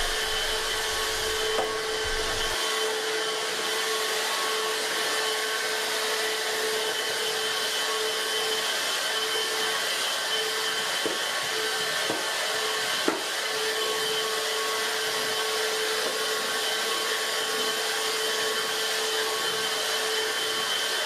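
Dibea F6 cordless stick vacuum running steadily at a constant pitch, with a steady whine, as it is pushed over a thick loop-pile carpet to pick up fine quartz sand.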